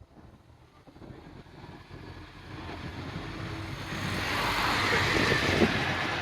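A road vehicle approaching and passing close, its noise building steadily to a peak about five seconds in and then easing slightly.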